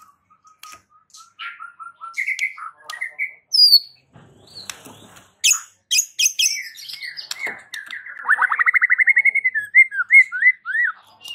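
White-rumped shama (murai batu) singing a varied song. It opens with a string of short clear whistles and sharp high notes, then a fast trill, and ends with a few falling whistles.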